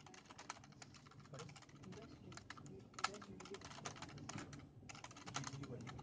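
Fast typing on an i-Rocks Crystal (IK6) USB keyboard with a clear plastic case: a rapid, continuous clatter of key clicks, with a brief pause about three quarters of the way through.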